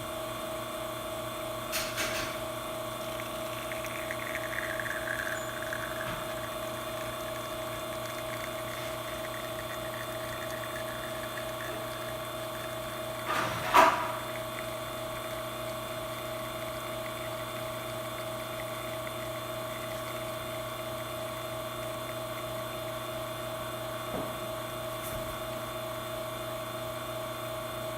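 Espresso machine's pump running with a steady hum while pulling a double shot through the group. A single sharp knock comes about halfway through.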